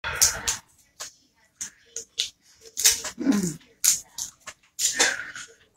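Snow crab leg shells cracked by hand and the meat sucked and slurped out: a run of short, sharp cracks and slurps at irregular intervals, with one short falling hum of enjoyment about three seconds in.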